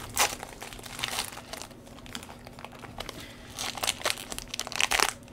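Foil trading-card pack wrapper crinkling as gloved hands work it open, in irregular rustles that are loudest toward the end.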